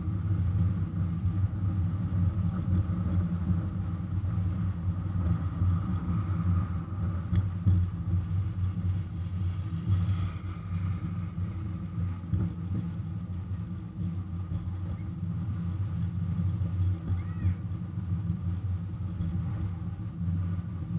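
Engine of a ride-on miniature railroad locomotive running steadily under way, pulling a loaded passenger train: an even, low-pitched drone.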